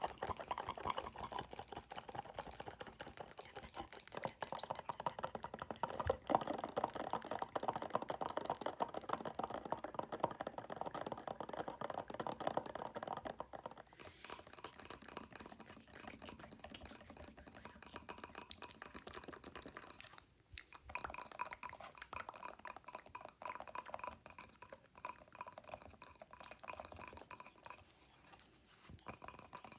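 Very fast fingernail tapping, a dense run of light clicks, layered with mouth sounds. The texture of the tapping changes about halfway through.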